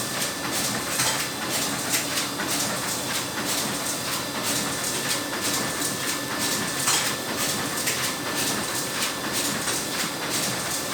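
Laminating machine for glossy and matte (doff) film running steadily, with a continuous mechanical hum overlaid by a fast, uneven clatter of clicks and rattles.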